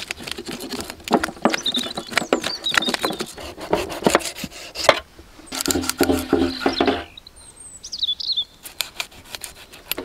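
Knife scraping the scales off a rohu fish on a metal plate: a quick run of rasping strokes. Birds chirp twice in the background.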